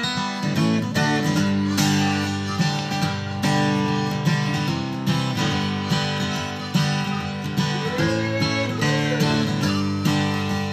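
Acoustic guitar strummed in a steady rhythm: an instrumental break between sung verses of a country-blues song, with a few sliding notes near the end.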